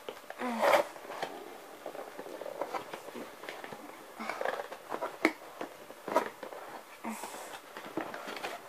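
Scattered soft clicks, knocks and rustles of a boxed Baby Alive doll and its packaging being handled, with a few faint breathy sounds.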